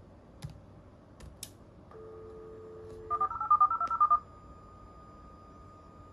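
A US Robotics Courier V.Everything 56K modem dialing out over a VoIP phone line, heard through its speaker: after a few key clicks, the line's dial tone sounds for about a second, then the modem tone-dials the number in a quick run of about ten DTMF beeps. A faint steady tone follows while the call is put through.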